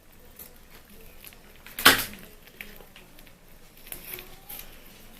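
Light clicks and handling noises of preparing a plate of instant fried noodles, with one sharp clatter about two seconds in.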